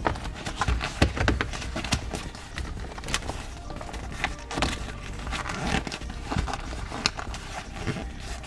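Hands working a shift boot and its trim ring into the car's centre console around the gear lever: irregular clicks, taps and rustling, with sharper clicks about a second in and near seven seconds.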